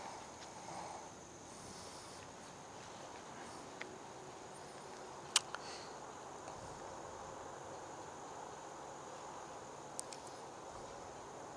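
Faint outdoor ambience: insects chirring steadily in a high, even band over a soft hiss, broken by a sharp click about five seconds in and a lighter one near ten seconds.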